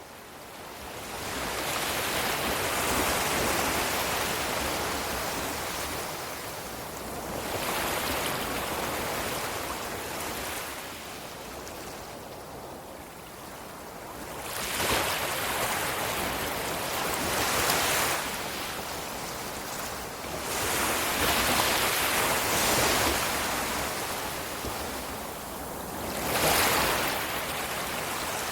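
Ocean surf: a continuous rush of waves breaking and washing in, swelling and ebbing every few seconds with stronger surges in the second half.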